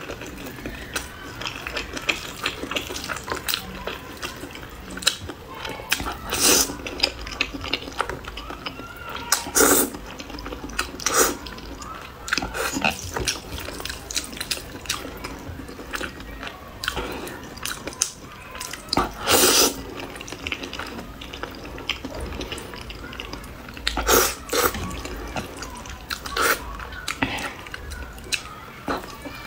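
Close-up eating sounds of a person eating sauced noodles: wet chewing and mouth clicks, with several louder slurps scattered through.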